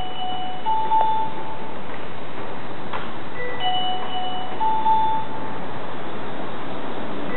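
Electronic platform train-approach chime: a rising three-note tone, played twice and starting a third time near the end, about every four seconds.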